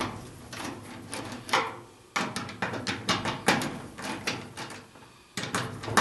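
Irregular clicks, taps and scrapes of a screwdriver loosening the terminal-block screws on an electric dryer, with the three-prong power cord handled against the sheet-metal back panel.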